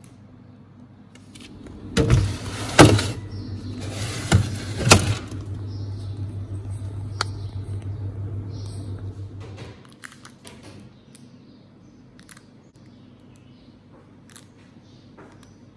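A metal baking tray clatters and knocks several times as it goes into a refrigerator, over the fridge's steady low hum. The hum cuts off suddenly near the middle, as the door shuts, and only faint small clicks follow.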